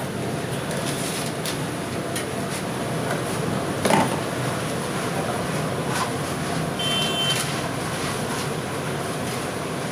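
Round fritters deep-frying in a wide kadai of hot oil: a steady sizzle. A metal slotted ladle knocks once against the pan about four seconds in.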